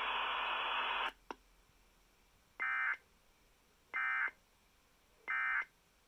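Emergency Alert System end-of-message signal: three short identical bursts of squawking digital data tones, evenly spaced about a second and a half apart. Before them, about a second of radio hiss cuts off with a click.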